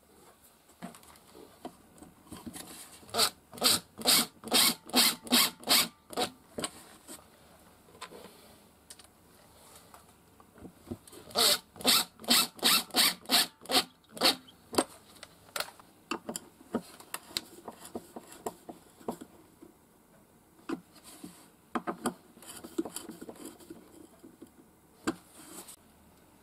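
Cordless impact driver driving screws into a pine board, heard as two runs of sharp, evenly spaced clacks about three a second, the second run beginning about eleven seconds in. Lighter knocks and rubbing from handling the wooden box fall between and after.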